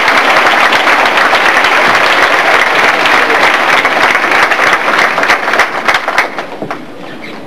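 Audience applauding loudly, many hands clapping at once; about six seconds in it thins to scattered claps and dies away.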